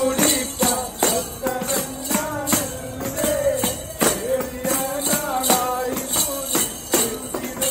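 Group singing accompanied by hand-played tambourines and hand-clapping, keeping a steady, lively beat.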